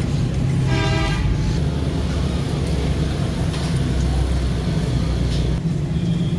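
Steady low rumble of road traffic, with one short horn toot about a second in.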